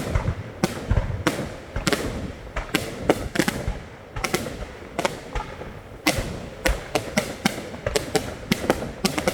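Fireworks going off in rapid, irregular succession: many sharp bangs and cracks, several at once at times, overlapping from more than one source.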